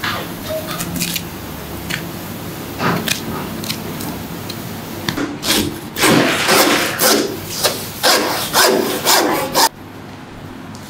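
Butcher's knife being honed on a steel: a quick run of loud scraping strokes, about three a second, that stops suddenly near the end. Before it, a boning knife slicing and scraping through beef fat and connective tissue.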